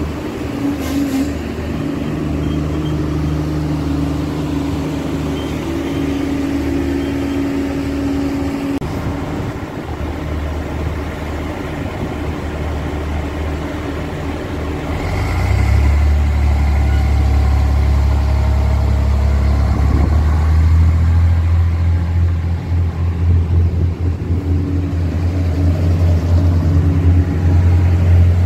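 Irish Rail diesel multiple unit's underfloor engines running with a steady note. About halfway through they open up louder and deeper as a train accelerates away along the platform.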